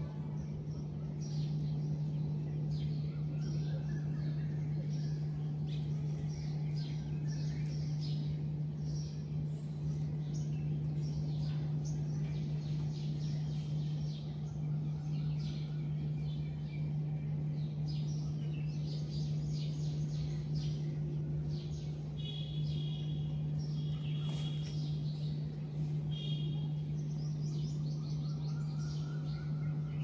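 Small birds chirping and calling again and again over a steady low hum.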